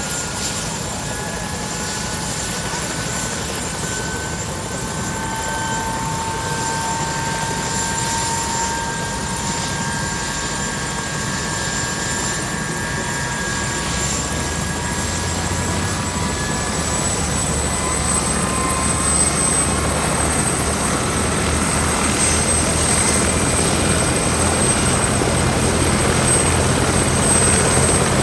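Military helicopter running on the ground before take-off: steady turbine whine with a high whistle that rises slightly, and a low rotor beat that comes in about halfway, the whole sound growing steadily louder.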